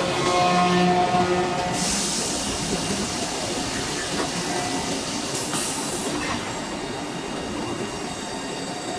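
Heavy forge-shop machinery running. A droning hum with a few steady tones in the first second and a half, then loud hissing that cuts in at about two seconds and again at about five and a half seconds, over a constant clattering rumble.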